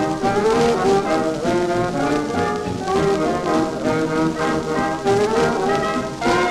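A 1939 shellac dance record plays a foxtrot by a swing-era dance orchestra: held melody notes over a steady dance beat.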